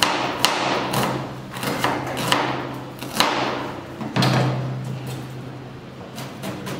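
Knife dicing a vegetable into brunoise on a plastic cutting board: a run of sharp chopping knocks, irregularly spaced about half a second to a second apart, becoming lighter taps after about four seconds.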